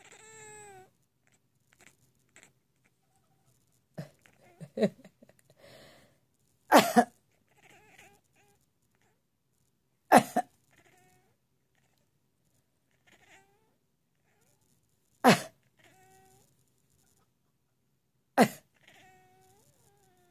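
A grandmother coughing hard every few seconds, five times, each cough answered by a short meow from a cat.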